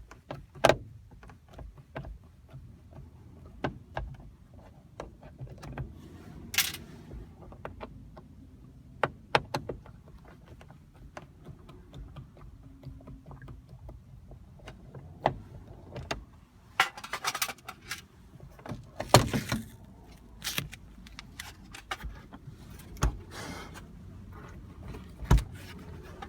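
Hand work on car interior trim parts: irregular clicks, knocks and a few brief scrapes, with the loudest knocks near the start and about two-thirds of the way through.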